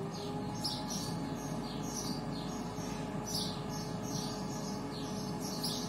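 Air fryer running, its fan motor holding a steady hum over a rush of air. Small birds chirp over it again and again, about two to three short chirps a second.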